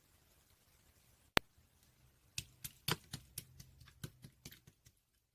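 Slime being played with by hand: one sharp pop, then a run of crisp, irregular clicks and pops that fade away.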